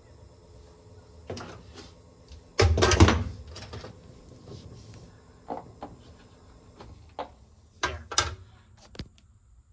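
Handling knocks and clunks around an open car dashboard: a few separate knocks, the loudest a heavy thump about three seconds in, over a faint low hum.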